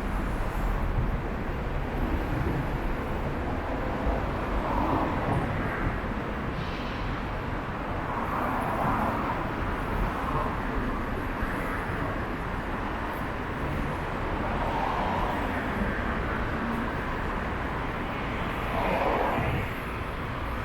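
City street ambience: a steady hum of road traffic, swelling now and then as vehicles pass.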